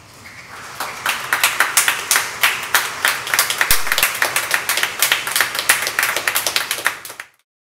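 Congregation applauding with many sharp hand claps, building over the first second and cutting off suddenly about seven seconds in.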